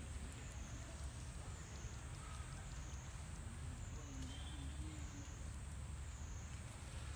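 Quiet outdoor ambience: a steady low rumble under a high-pitched drone that slowly wavers up and down in pitch.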